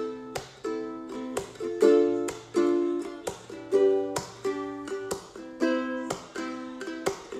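Ukulele strummed in a steady rhythm, chord after chord, about two to three strums a second: the instrumental intro of a song before the singing comes in.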